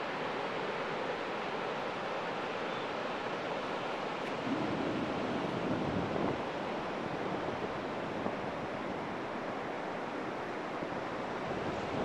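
Pacific Ocean surf breaking steadily as a continuous rushing wash, with some wind on the microphone. It swells louder for about two seconds near the middle.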